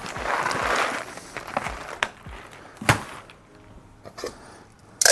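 A bag of coffee beans crinkling as it is handled, followed by a few sharp separate knocks and a louder one right at the end as the bag and the grinder's bean hopper are handled.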